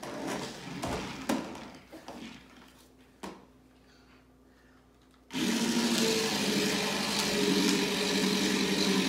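Electric motors of a toy remote-control stunt car start suddenly about five seconds in and run with a steady whir as the car drives. A few scattered knocks come before it.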